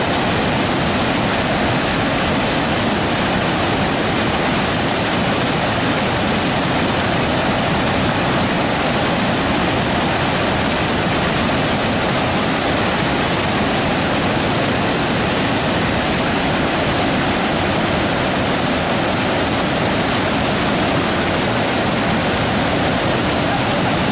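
Steady loud rush of a waterfall, water pouring over the falls without let-up.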